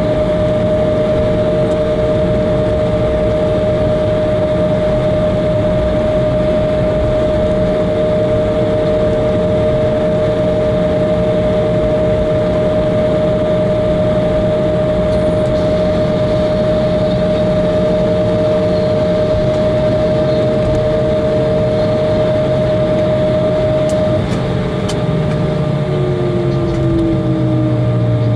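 Steady cabin noise of an Embraer regional jet taxiing after landing: its turbofan engines and air system run with two steady whining tones over the noise. About 24 seconds in, one tone stops and another slides slowly down in pitch.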